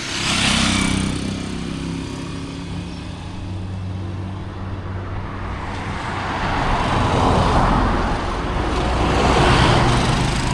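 Motor-vehicle traffic passing on a road, with a steady engine hum underneath. One vehicle goes by at the start, and the tyre-and-engine noise swells twice more in the second half.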